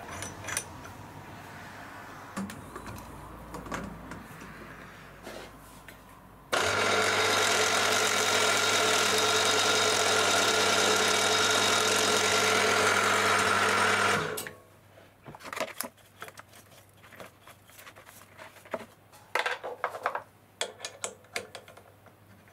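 A bench milling machine's spindle runs for about eight seconds with a steady hum and whine while an end mill machines out a hole in a strip of wood, then it cuts off suddenly. Light clicks and rattles of tooling being handled come before and after.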